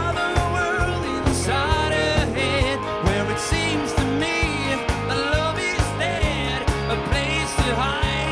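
Pop/rock band playing live: a lead voice singing a gliding melody over guitar, bass and a drum kit keeping a steady beat of about two hits a second.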